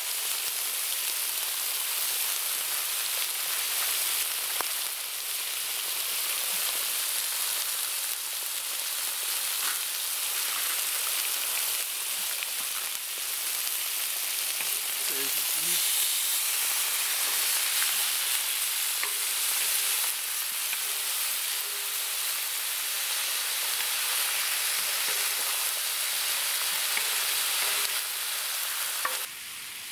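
Chunks of meat sizzling and frying steadily on a hot steel disc pan over a campfire, with a wooden spatula stirring them now and then.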